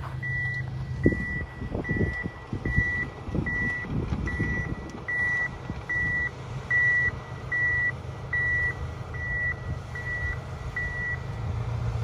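A high electronic warning beep repeating steadily, a little faster than once a second, stopping shortly before the end. Under it runs the low hum of an idling engine.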